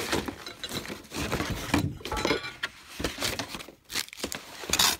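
Paper and cardboard packaging being handled: rustling and crinkling of the instruction sheet and box, with scattered light knocks and clicks.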